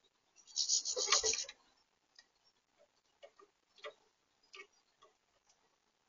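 Goldfinches feeding at a plastic bird-feeder tray: a loud rustling scuffle about a second in, then a handful of sharp, separate clicks as beaks peck the seed.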